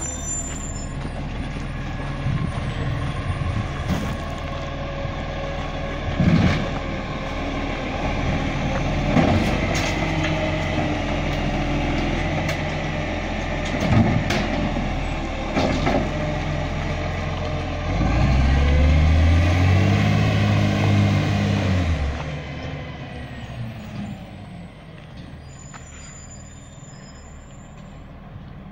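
Recycling truck's diesel engine idling, with several short sharp air-brake releases, then revving up for about four seconds as the truck pulls away and fading as it drives off.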